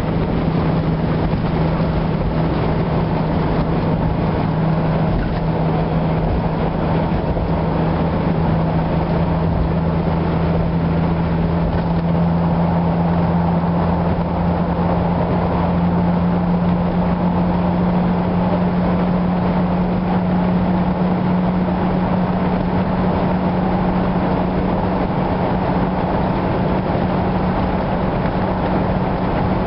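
Car engine and tyre noise heard from inside the cabin while driving through a highway tunnel: a steady drone with an engine hum that rises slowly in pitch.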